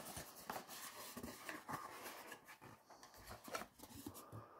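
Faint rustling and light clicks and taps of a cardboard perfume carton being handled and opened.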